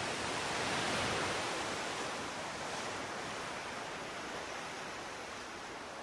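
Ocean surf rushing, swelling to its loudest about a second in and then slowly easing.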